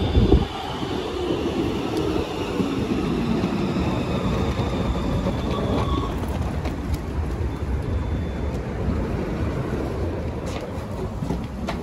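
Modern low-floor electric tram braking to a stop, its traction motors whining and falling in pitch over the first half, then a steady low rumble as it stands at the platform. A few sharp clicks near the end.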